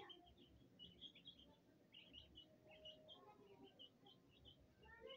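Faint, rapid high peeping of young chicks, many short chirps a second.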